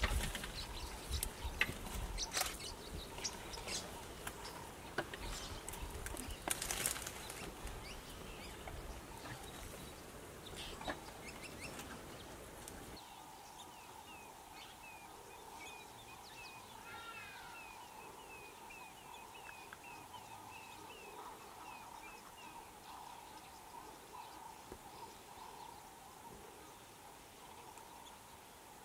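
African elephant feeding at a bush: scattered twig snaps and leaf rustling over about the first half. Then quieter bush ambience with a steady insect drone and a bird calling in a run of quick, repeated notes.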